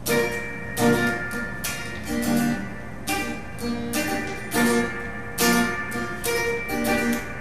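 Acoustic guitar playing chords, strummed at a steady, unhurried pace of about one stroke every three-quarters of a second, each chord left to ring into the next.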